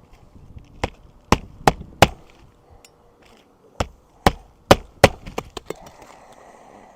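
Hammer blows on an asphalt-shingle roof over wood plank decking: two sets of four sharp strikes, each set coming about three a second, with a few lighter taps after.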